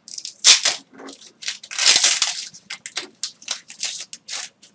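A foil Pokémon booster pack being torn open and its wrapper crinkled: a run of short crackling rustles, the longest about two seconds in.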